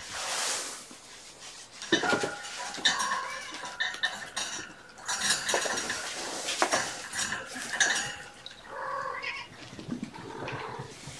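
Irregular clinking and clattering of small hard objects being handled, with a few short kitten mews mixed in.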